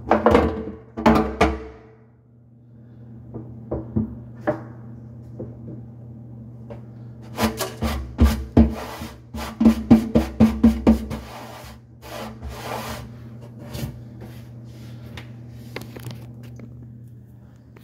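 Knocks, clatters and rubbing on a stainless steel sink as its faucet hardware is worked on from below, in a few bursts with the busiest run of knocks in the middle, over a steady low hum.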